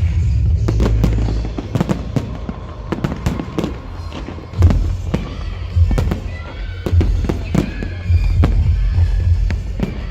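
Fireworks bursting in quick succession, a string of sharp bangs and cracks, the loudest about halfway through, over loud electronic dance music with heavy bass.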